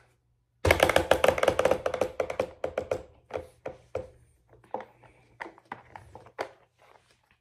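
Plastic toy barn-and-windmill playset being worked by hand: a fast run of plastic clicks that slows and thins into scattered taps.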